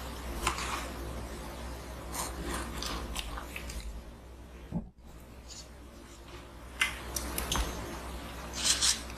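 A wooden herb box is handled on a bamboo mat and its hinged lid is opened, giving scattered wooden taps, rubbing and scraping. A few sharp clicks and louder rustles come in the second half.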